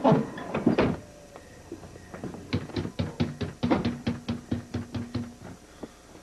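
A fist knocking rapidly on a house door, about five knocks a second for some three seconds, after a couple of louder thuds right at the start.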